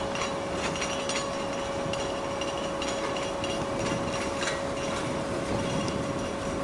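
Cargo port ambience: a steady mechanical hum carrying one constant mid-pitched tone, with light knocks and clicks scattered irregularly through it.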